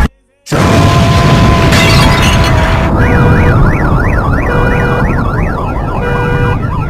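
Sudden loud blast after a split second of silence, followed from about three seconds in by a fast rising-and-falling emergency siren sound effect.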